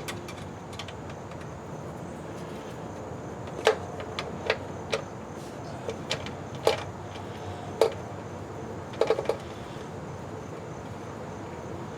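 About ten light, sharp clicks and knocks, irregularly spaced, with a quick cluster of three near the end, over a steady low hiss: metal parts and hand tools being handled while a transmission filter is fitted.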